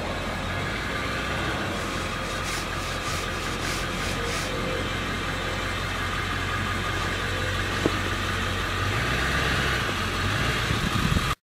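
Cat 268B skid steer loader's diesel engine running steadily, rising in pitch as it revs up near the end, then the sound cuts off suddenly.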